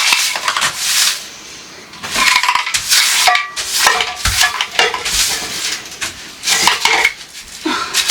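Dishes and cutlery clattering as they are handled in a kitchen, in quick, irregular clinks and knocks, some with a brief ring.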